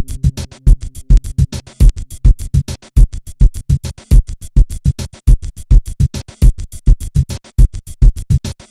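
Background music with a fast, steady electronic drum-machine beat.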